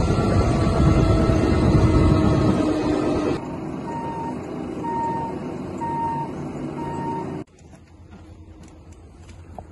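Military helicopter's engine and rotor running loud and steady. The sound then drops abruptly to a quieter hum with four evenly spaced high electronic warning beeps about a second apart, and drops again to low background noise near the end.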